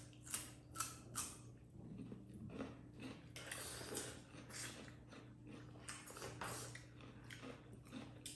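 Close-up mukbang eating sounds, chewing and lip smacking on dhindo and chicken: a loose series of short wet clicks and smacks.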